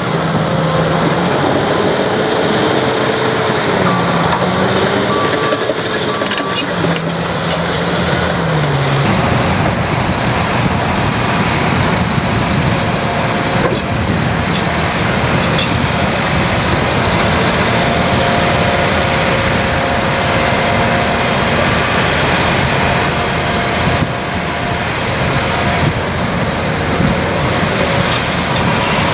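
Diesel engines of heavy construction machinery working. The engine pitch rises and falls for the first several seconds, then a heavier, steady low rumble takes over about nine seconds in.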